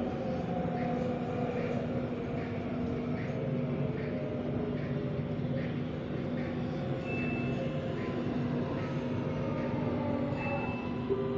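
Electric metro train of the Bangkok MRT Blue Line heard from inside the car, running with a steady hum and rumble. In the last few seconds a faint motor whine falls in pitch as the train slows into a station.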